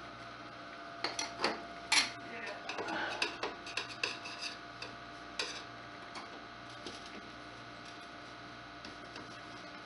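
Butter knife clicking and scraping at the joint of a metal stovepipe and its brick chimney thimble as stove-door gasket rope is packed in around the pipe. A run of sharp clicks and scrapes starts about a second in and lasts about four seconds, the loudest about two seconds in, over a steady faint hum.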